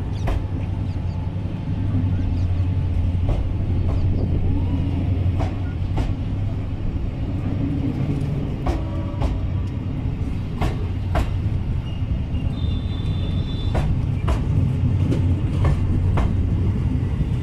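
Diesel locomotive and train running by: a steady, loud low engine drone with scattered sharp clanks and clicks.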